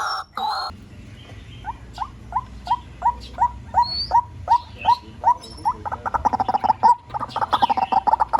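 White-breasted waterhen calling: a short loud harsh call, then a series of short rising notes about three a second that speed up into a fast, dense run about two-thirds of the way in.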